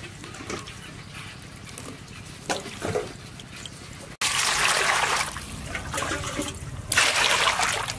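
A few soft handling knocks, then, about halfway through, water starts suddenly pouring into a stainless steel basin, a steady rushing splash that grows louder near the end.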